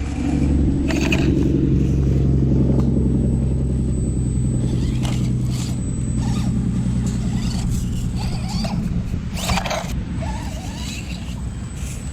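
Axial SCX24 Bronco micro RC crawler climbing over rocks: a low steady hum that fades near the end, with scattered scrapes and clicks of tyres and chassis on rock.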